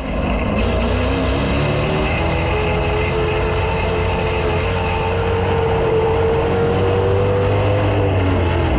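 Dirt-track street stock race car's engine under hard throttle during hot laps, heard from a camera mounted under the rear bumper, over a heavy low rumble and rushing wind and dirt noise. The engine pitch climbs slowly for most of the run, then drops near the end as the throttle comes off.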